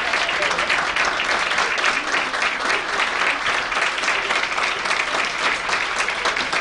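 Audience applauding steadily: dense, even clapping from a full hall.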